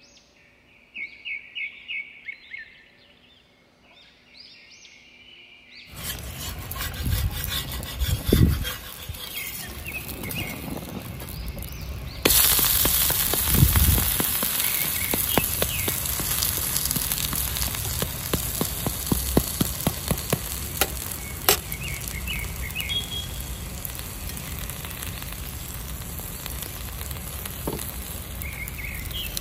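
Uttapam batter frying on a hot tawa: a crackling sizzle starts about six seconds in and gets louder about twelve seconds in, with a metal spatula scraping and turning it and a couple of dull knocks. Birds chirp briefly before the sizzle begins.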